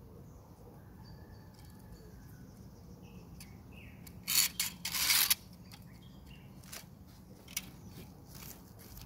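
Small birds chirping faintly outdoors, with two short, loud rustling scrapes about four to five seconds in and a few light taps after them.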